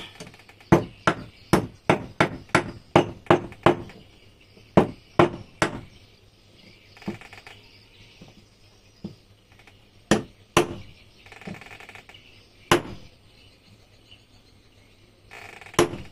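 Hammer tapping on metal parts of a Yamaha 15 hp outboard gearbox during assembly. About nine sharp taps come in quick succession early on, three more follow shortly after, then a few single taps spaced well apart.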